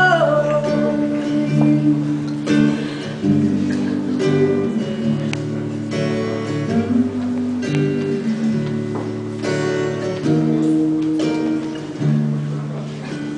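Solo acoustic guitar played live, a run of chords changing every second or two with no singing, the closing bars of the song, dying away near the end.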